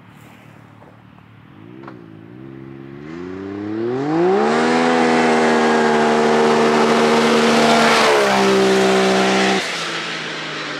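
Turbocharged Can-Am Maverick X3 side-by-side launching hard from a standstill. The engine falters briefly at first, a slight bog on the start, then climbs and holds a steady high pitch as it comes near, loud. About eight seconds in the pitch drops as it passes by, and it grows quieter as it pulls away.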